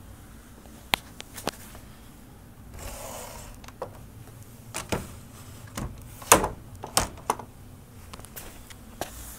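Scattered sharp clicks and knocks of handling, bunched between about five and seven seconds in with the loudest near six, and a short rush of noise about three seconds in.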